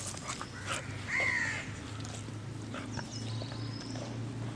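A bird calls once about a second in, a short call that rises and falls, over a low steady hum. Faint clicks fit the dog chewing raw chicken.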